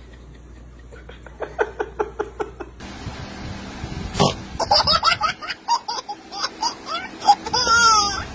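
A baby laughing in quick short bursts, ending in a longer, drawn-out laugh.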